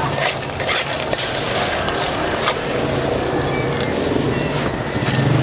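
Busy street noise with a motor vehicle's engine running close by as a steady low hum, and a few sharp clicks and clatters in the first half.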